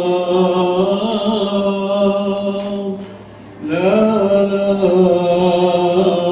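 A man's voice chanting in long, slowly held notes, as in church chant. It breaks off for a moment about three seconds in, then resumes with a rising slide into the next note.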